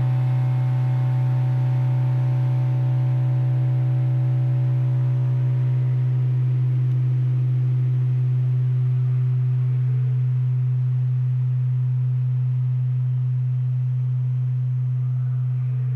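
High-voltage test reactor of a HIVOLT resonant test set humming very loudly and steadily while energised for an AC withstand test of gas-insulated switchgear. It is one deep, constant tone, and its higher overtones fade gradually from about halfway through.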